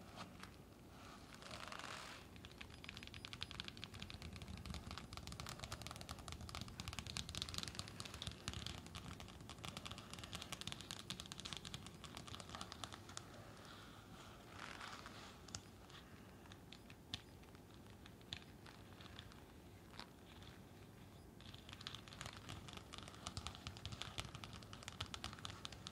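LED face mask handled close to the microphone: faint, continuous crinkling and scratching made up of many quick, light taps and clicks.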